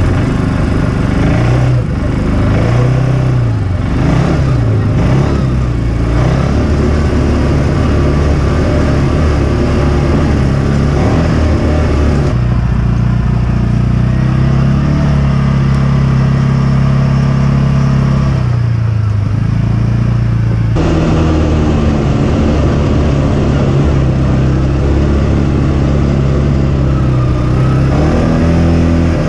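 CFMOTO side-by-side's engine running under load on a rocky trail, its pitch rising and falling with the throttle in the first few seconds, then steadier. The engine note changes abruptly several times.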